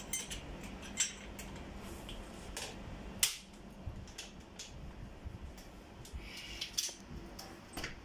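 Screwdriver and door lever handle clinking and tapping against the lock hardware of an aluminium door while the handle is being worked off: a dozen or so irregular sharp metallic clicks, the loudest about three seconds in.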